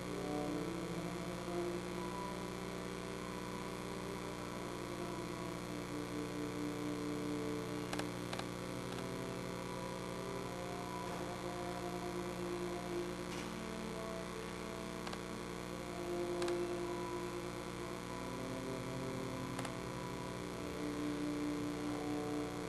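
A steady electrical hum with faint held tones swelling and fading, and a few faint taps.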